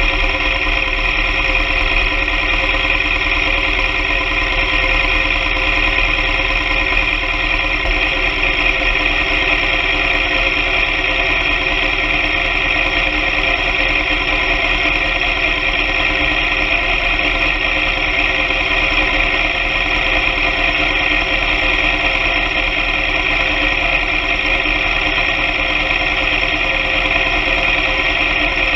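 Motorcycle engine droning at a steady cruising speed, its pitch and loudness unchanging throughout.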